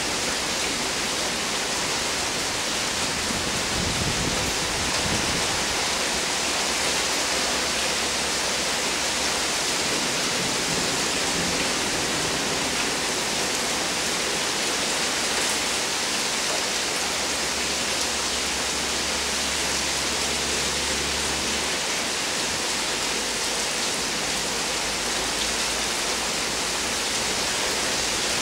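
Steady rain falling during a summer thunderstorm.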